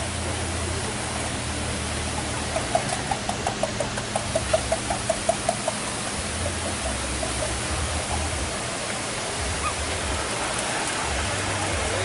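Waterfall: a steady rush of water pouring down over rock. From about two and a half seconds in, a quick run of short, high pips comes about four a second for roughly three seconds.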